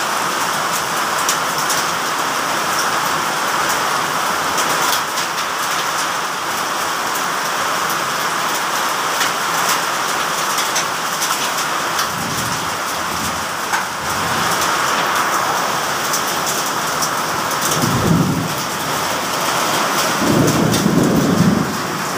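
Heavy rain pouring down steadily in a storm, with many sharp ticks of drops striking surfaces. Deep rumbles swell up now and then, strongest twice in the last few seconds.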